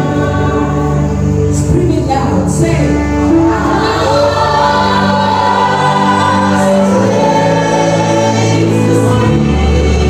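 Worship music: voices singing a slow worship song over sustained backing instruments with a steady bass, the notes held long.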